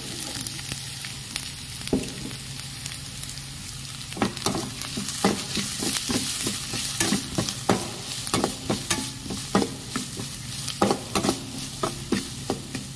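Chopped onion, capsicum and carrot sizzling in hot oil in a kadhai while a metal slotted spatula stirs them. From about four seconds in, the spatula strikes and scrapes against the pan two or three times a second.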